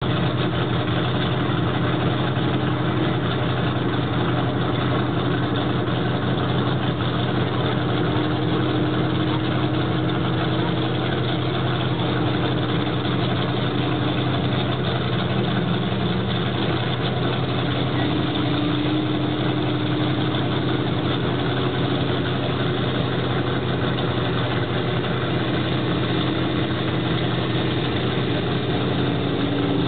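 Webslinger monster truck's engine running steadily as the truck drives slowly with passengers aboard, its note wavering slightly up and down.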